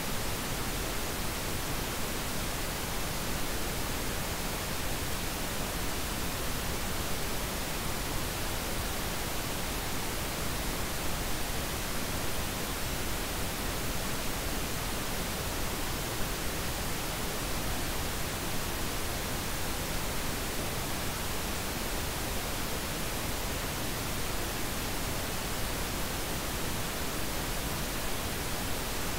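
Steady, even hiss of pink noise spread across all pitches, with no change in level or character.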